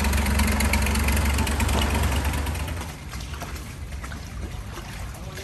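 Motorboat engine running with a steady low drone that fades and drops away about three seconds in.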